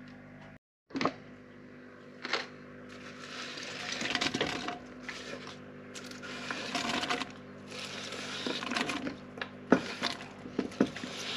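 Shredded cabbage being swept by hand off a bamboo cutting board into a metal cauldron: rustling and scraping in several pushes, with a few sharp knocks. A steady low hum runs underneath.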